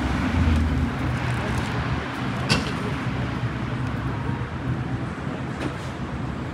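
City street ambience: a steady hum of road traffic from passing cars, with a single sharp click about two and a half seconds in.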